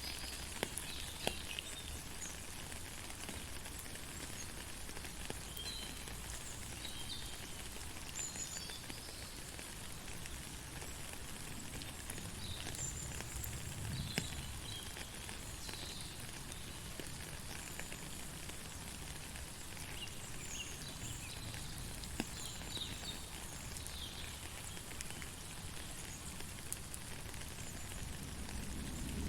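Steady rain falling, an even hiss, with scattered brief high chirps from small creatures.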